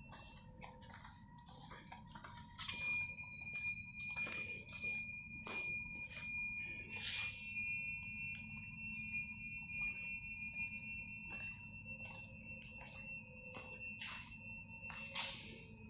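S1100 ICU ventilators running, with short clicks and puffs of hissing air. A steady high beeping tone, like an alarm, comes on suddenly a little over two seconds in and holds.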